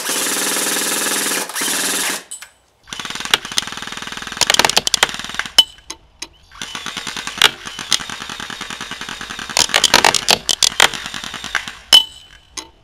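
Battery-powered airsoft electric gun firing on full auto: one solid burst of about two seconds, then after a short pause a long run of shorter stop-start bursts with sharp, louder cracks among them.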